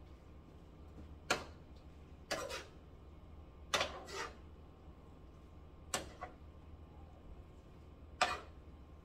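Cooking utensils knocking and scraping against a frying pan as pancit noodles are stirred and tossed. About half a dozen short strikes and scrapes come a second or two apart.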